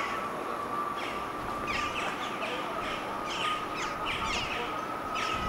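Crow-family birds cawing: a run of short, harsh calls in quick clusters. A steady high whine sounds under them.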